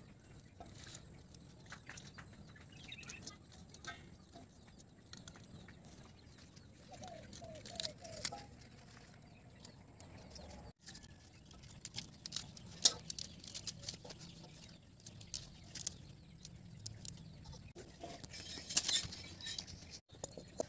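Scattered small snaps, clicks and rustles of Malabar spinach leaves being plucked from their stems and dropped into a steel bowl. A short run of four or five bird calls comes about seven seconds in.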